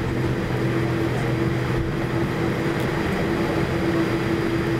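Steady drone of a Boeing 787 Dreamliner's engines at taxi power, heard inside the passenger cabin, with a constant low hum and no change in pitch or loudness.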